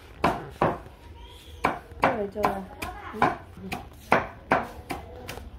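Regular sharp knocks, about two a second, with a short pause near the start. A brief voice sounds in the middle.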